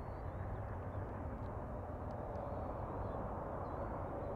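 Boeing 777-300ER on final approach, its GE90 turbofans giving a steady rumble of jet noise with a thin steady whine held through it.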